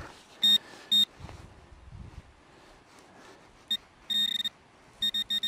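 Metal detector beeping over a metal target in the freshly dug hole: two short beeps about half a second apart, a few more later, then beeps coming quicker near the end and running into a steady tone. Soil is scraped with a digging tool between the beeps.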